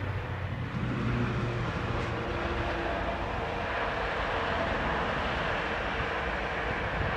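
Diesel freight locomotive running under power as a container freight train approaches: a steady low engine drone over a broad rumbling haze.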